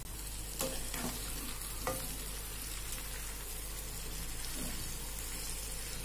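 Raw chicken pieces sizzling in hot oil with fried onions in a pan, stirred with a steel spoon; a few short knocks in the first two seconds.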